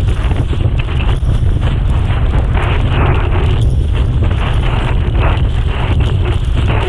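Wind on the microphone as a heavy, steady rumble, over the rushing and irregular slapping of choppy water under a windsurf board sailing at speed.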